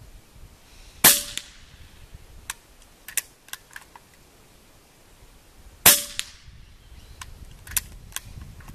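Two shots from a .25 (6.35 mm) AEA HP Varmint PCP air rifle firing slugs, about five seconds apart. Each is a sharp crack followed by a short ring. Several lighter clicks come between and after the shots.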